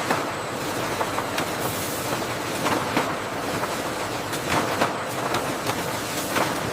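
Factory machinery running steadily, with irregular clacks and knocks over a constant mechanical noise.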